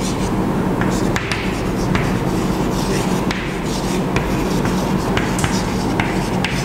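Chalk writing on a blackboard: scratchy strokes with frequent sharp taps as the chalk meets the board, over a steady low hum.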